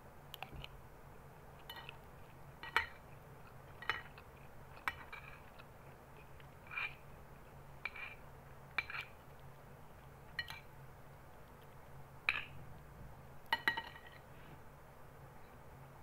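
Metal spoon clinking and scraping against a glass bowl of rice, about a dozen separate clinks spread irregularly, some with a brief ring.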